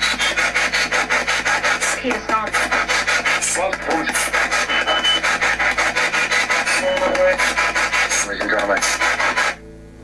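Spirit box radio sweep: a receiver stepping rapidly through stations, giving loud choppy static at about eight pulses a second, with brief snatches of broadcast sound. It cuts off suddenly near the end.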